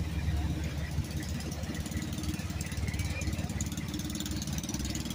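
Motor vehicle engine running slowly close by: a steady low rumble with a fast, even pulse.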